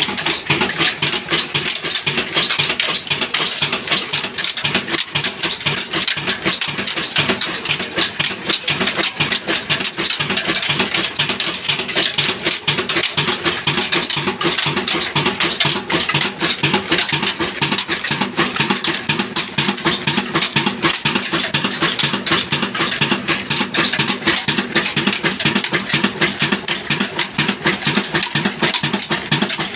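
Old desi Ruston-type stationary diesel engine running steadily, its large flywheel turning a flat drive belt, with a rapid, even clatter.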